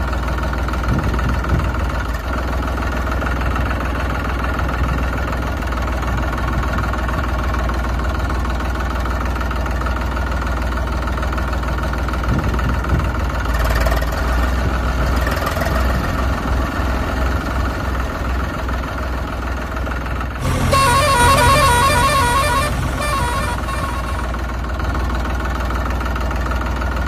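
Tractor engine running steadily. Somewhat past two-thirds of the way through, a horn honks in quick pulses for about three seconds.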